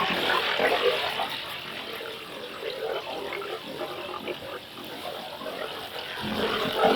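Scuba diver exhaling through a regulator underwater: a long rush of crackling, bubbling air that slowly fades, with a lower rasping sound starting again near the end.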